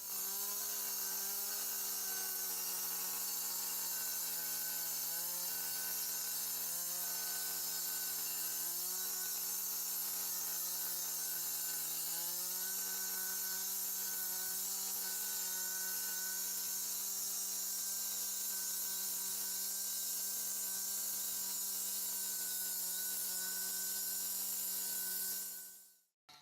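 Concrete saw cutting expansion joints into hardened concrete: a steady motor whine with a strong high hiss from the blade, the pitch sagging briefly a few times as the blade takes load. It stops shortly before the end.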